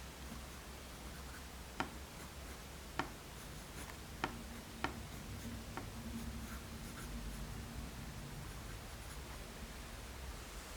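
Graphite pencil (5B Tombow MONO 100) drawing on thin printing paper: soft scratching strokes, broken by about five sharp ticks in the first six seconds.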